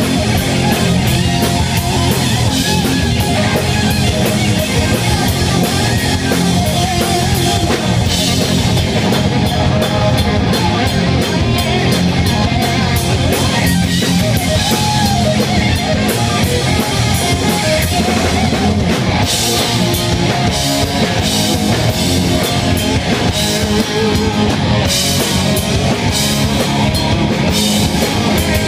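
Hard rock band playing live and loud: distorted electric guitars, bass guitar and a drum kit.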